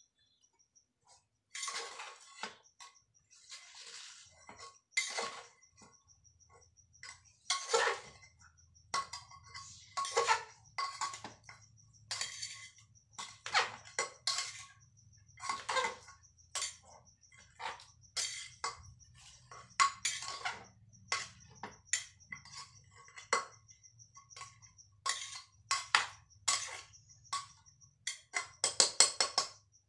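A metal spatula scraping and clanking against the inside of an aluminium cooking pot as food is stirred, in irregular strokes about once or twice a second with a faint ringing of the pot, quickening into a fast run of strokes near the end.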